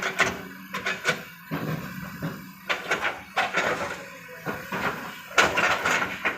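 Irregular knocks and clattering, bunched in quick runs, loudest about five and a half seconds in.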